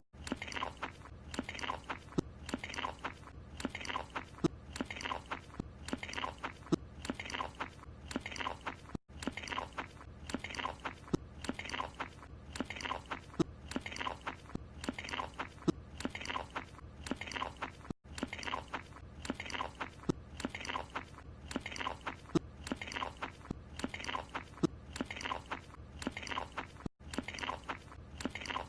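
A cartoon character chewing a croissant: a steady, even munching rhythm of about two chews a second. The chewing is a repeating loop that drops out for an instant about every nine seconds.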